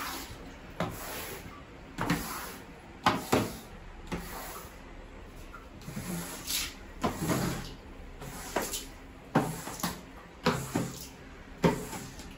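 A wet mop swished over a phenyl-wetted bathroom floor, in short irregular strokes about one or two a second.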